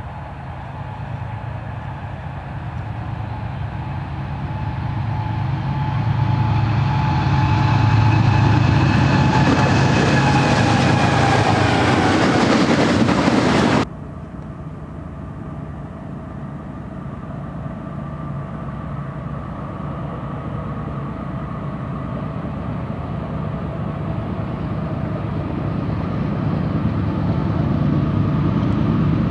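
Diesel freight locomotives in a multi-unit lash-up, engines working hard and growing steadily louder as the train approaches. About 14 seconds in, the sound cuts off suddenly and a second approach begins, quieter at first and building again.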